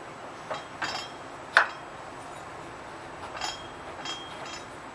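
Metal parts clinking as a torque converter driver is fitted onto a small engine's crankshaft: about six short, ringing clinks, the loudest about a second and a half in.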